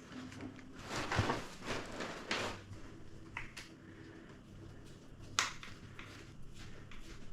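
Crossbow parts being handled and fitted by hand: scraping and rubbing of plastic and metal about a second in, a few small clicks, then one sharp click past the middle.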